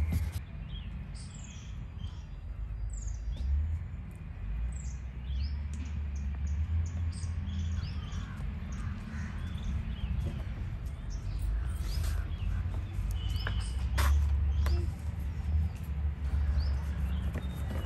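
Small birds chirping: many short, high calls that slide downward in pitch, over a steady low rumble, with a few sharp clicks in the second half.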